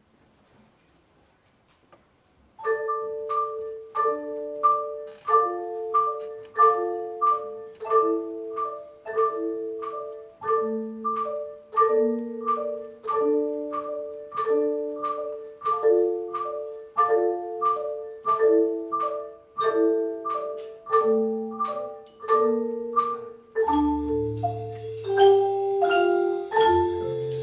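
Ensemble of marimbas and other mallet percussion begins after about two and a half seconds of near silence, playing a repeated chord in a steady, even pulse while the lower note of the chord shifts. Near the end, deep bass notes and a high shimmer join in.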